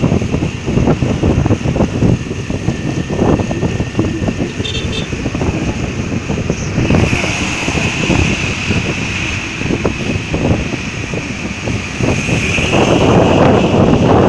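Wind rushing and buffeting over the microphone on a moving motorcycle, with the motorcycle's engine and road noise underneath. The wind noise gets louder near the end.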